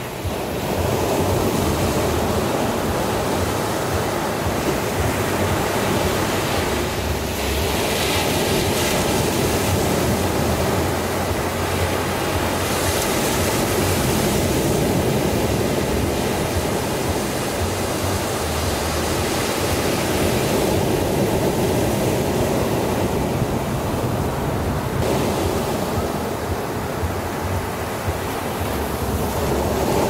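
Small ocean waves breaking and washing up a sandy beach: a continuous rush of surf whose hiss swells and eases every few seconds as each wave breaks and runs up the sand.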